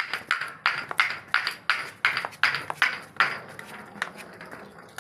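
Glass bottles being smashed: a quick run of sharp crunching impacts, about three a second, that thin out and fade after about three and a half seconds.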